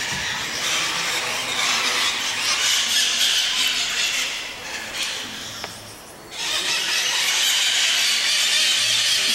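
Many birds screeching together inside a cave: a continuous shrill din that drops away briefly about six seconds in, then comes back just as loud.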